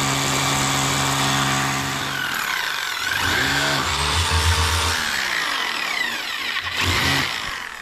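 Handheld electric drill boring into a brick wall. The motor runs steadily at first, then its pitch slides up and down as it bites and eases, and it stops shortly before the end.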